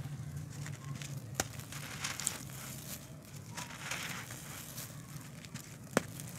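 Hands crushing and crumbling dry, dusty handmade lumps of earth: a crunchy, gritty crumbling and rustling, with a sharp crack about one and a half seconds in and a louder one near the end.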